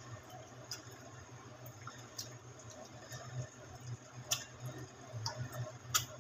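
Hand squelching raw beef chunks through a thick yogurt marinade in a glass bowl, faint and wet, with a few sharp clicks, the loudest about four seconds in and just before the end. A low steady hum runs underneath.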